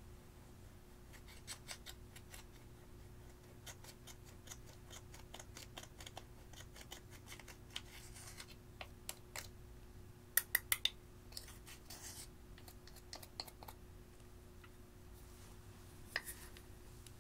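Pressed eyeshadow being scraped and crumbled out of its plastic compact with a small tool: a run of faint scratches and small clicks, with a quick burst of four sharper clicks about ten seconds in.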